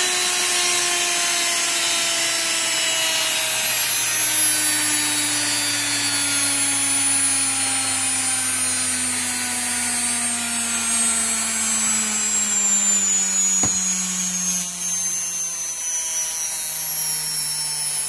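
Washing machine universal motor spinning at very high speed under a TDA1085C tachogenerator speed controller, a loud whine that slowly falls in pitch. A single sharp click about fourteen seconds in.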